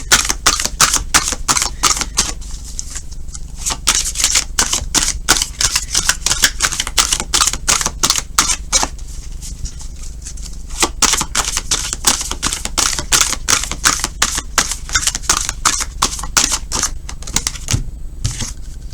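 A deck of tarot cards being shuffled by hand: a fast, irregular run of card flicks and slaps, with short pauses about three seconds in, around ten seconds in, and near the end.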